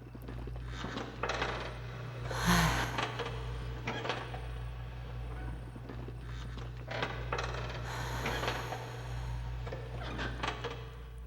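Irregular clatter and scraping, with sharp clinks here and there and louder noisy stretches about two and a half seconds in and again around eight seconds, over a steady low hum.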